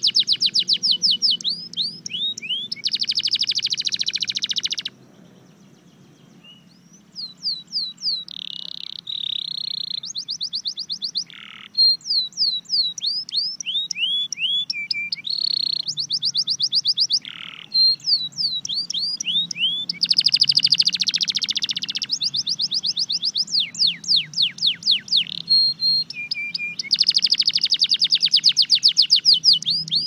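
Red factor canary singing a long, varied song: dense rapid trills alternate with runs of quick downward-slurred notes, with a short break about five seconds in.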